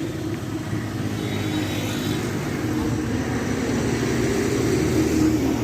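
An engine running steadily: a low, even drone.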